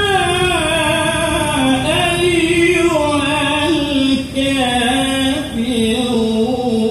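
A man's voice reciting the Quran in Arabic in the melodic tilawah style. He holds long, ornamented notes that glide up and down in pitch.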